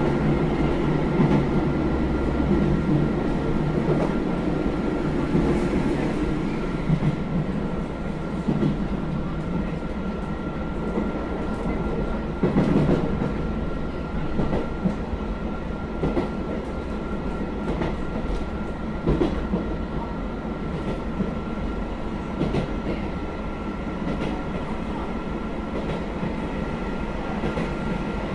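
Running sound of a JR Hokkaido KiHa 201 series diesel railcar under way: a steady low diesel drone with a constant high whine, and scattered clicks and knocks of the wheels over rail joints. The low engine note eases off after about three seconds.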